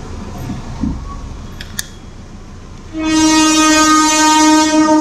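A vehicle horn sounding one long, steady blast of about two seconds, starting about three seconds in, over a low steady rumble of street traffic.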